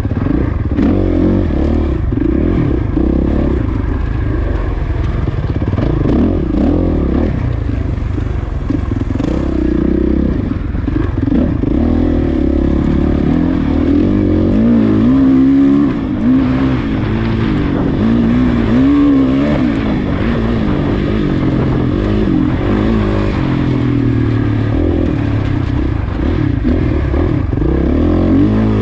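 Off-road dirt bike engine running hard and revving up and down again and again under a heavy low rumble, heard from an onboard camera during a race lap.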